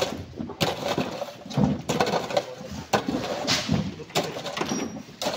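A series of sharp strikes of a hand tool on rock, roughly one a second, as rock is broken up.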